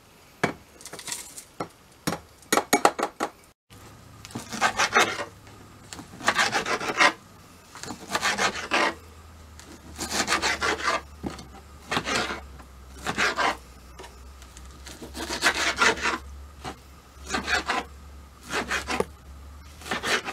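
Kitchen knife sawing through raw boneless, skinless chicken breast on a plastic cutting board, cubing it. The blade makes a rasping stroke about once a second.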